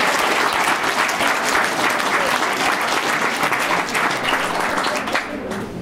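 An audience applauding with steady clapping, which thins out a little near the end.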